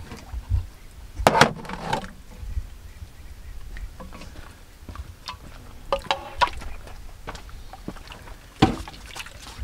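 A ladle clinking and scraping in a pot as fish soup is ladled into bowls, with a few sharp clatters: a cluster about a second in, more around six seconds, and a single sharp one near the end.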